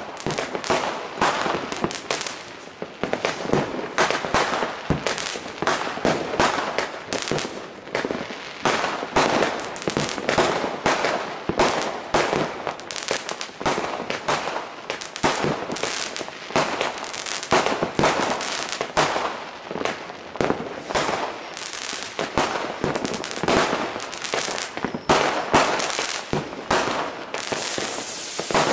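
Many fireworks and firecrackers going off at once, a dense run of bangs and crackles several a second with no let-up.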